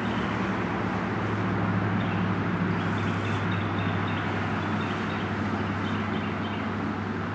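Steady low engine drone, a distant engine's hum that swells slightly a couple of seconds in and eases off toward the end.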